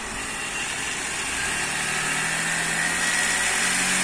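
Singer 9900 high-speed industrial sewing machine running, its speed rising steadily as the pedal is pressed further: a smooth whir that climbs in pitch and grows louder.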